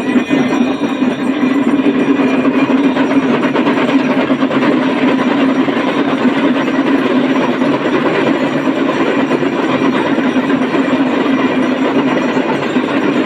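Many damrus, the small hourglass hand drums, rattled fast together in a continuous dense roll, with a steady booming drum tone underneath.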